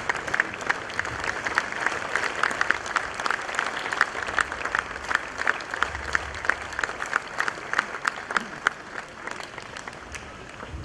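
Audience applauding, a dense run of claps that thins out and fades near the end.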